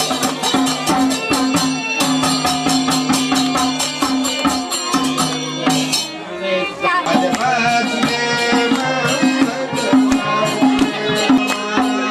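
Live devotional bhajan music for dancing: a fast, even hand-drum and jingling percussion beat over steady held low notes. About six seconds in the beat drops away and singing voices come to the fore, with the percussion returning in sparse strokes.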